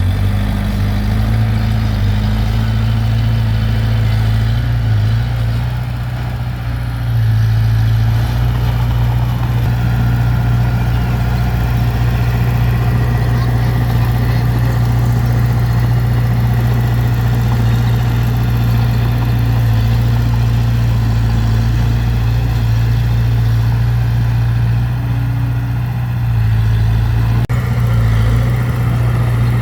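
Heavy diesel engine of earthmoving machinery running steadily, with a brief drop in loudness about six seconds in and again near the end.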